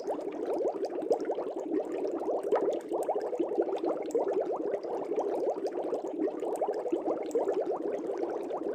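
Air bubbles streaming continuously through aquarium water: a steady, dense bubbling made of many quick little rising plinks.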